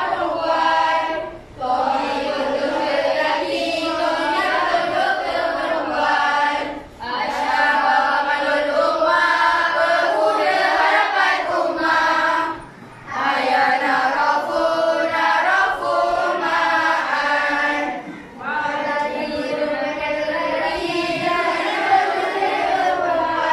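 A class of schoolchildren singing together in unison, in phrases of about five to six seconds with short breaks between them.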